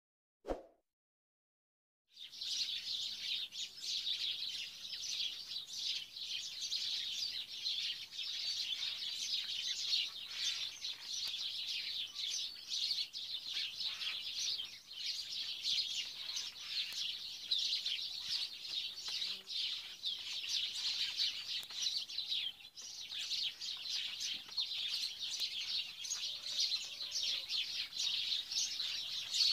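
Dense chorus of many small birds chirping without a break. It starts about two seconds in, after a short blip in near silence.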